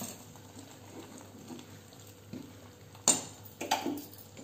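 Hot water simmering in a pan as coarse semolina is sprinkled in, with a couple of sharp clinks of a steel spoon on metal cookware about three seconds in.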